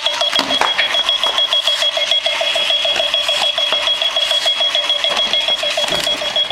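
Wheeled runaway alarm clock sounding its alarm: a steady high electronic tone over a rapid string of repeating chirps, several a second. Scattered knocks come through as the clock rolls.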